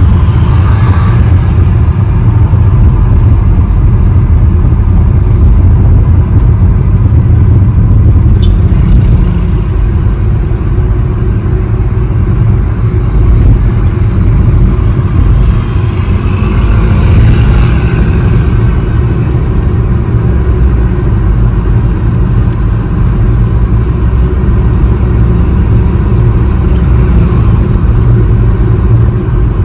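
A car driving on city roads, with a steady low rumble of engine and tyres heard from inside the cabin. A brief swell of higher hiss comes about two-thirds of the way through.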